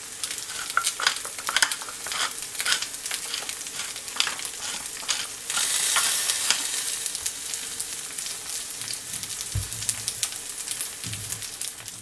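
Slices of blood sausage, liver sausages and a fried egg sizzling in a frying pan, a steady hiss with frequent crackling pops of fat. Around halfway through, a pepper mill grinds pepper over the pan.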